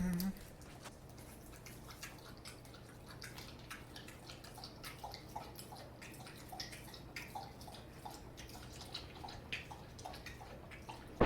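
German Shepherd dog lapping water from a bowl: a faint, steady run of small wet laps and drips.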